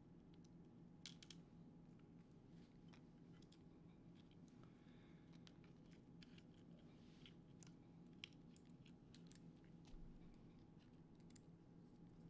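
Faint, scattered small clicks and ticks of a small FPV drone's frame and parts being handled and turned over, over a steady low room hum.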